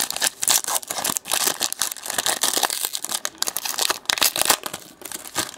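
Foil wrapper of a Select Racing trading card pack being torn open and crinkled by hand: a dense, continuous run of crackling crinkles, easing off near the end.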